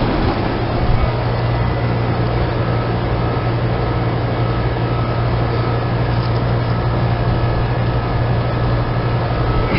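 Two Trane XB10 central air-conditioner outdoor units running steadily: the even whoosh of the condenser fans over a constant low hum from the reciprocating compressors.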